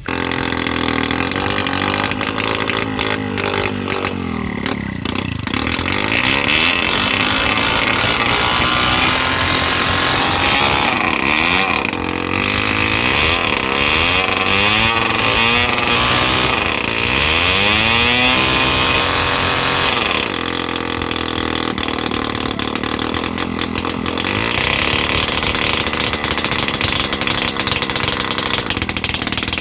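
Small two-stroke engine of a TVS Super XL moped running and being revved, its pitch rising and falling again and again between about twelve and twenty seconds in. It is running on a different spark plug, fitted because the new one misfired.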